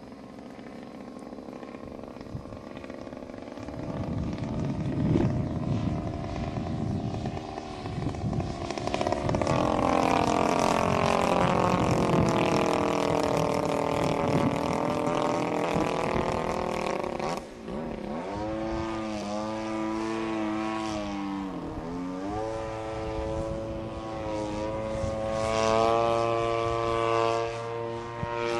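Yak-54 aerobatic airplane's engine and propeller droning overhead. The engine note sweeps down and up several times as the plane manoeuvres, with a sharp dip about seventeen seconds in and another a few seconds later.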